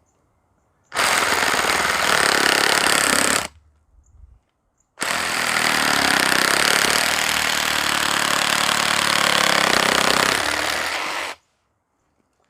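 Meterk 20V cordless reciprocating saw cutting wood in two runs, one of about two and a half seconds and then one of about six seconds.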